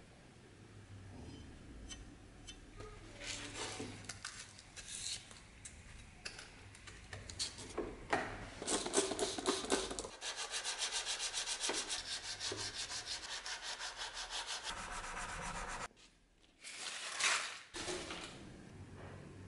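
Steel mortise chisel being honed on abrasive paper: rubbing, scraping strokes, first uneven, then a run of quick, regular back-and-forth strokes in the middle that stops abruptly, followed by one more scrape.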